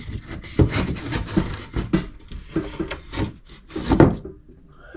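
Wooden boards being handled and fitted into place: irregular knocks and scraping of wood against wood, with the loudest knock about four seconds in.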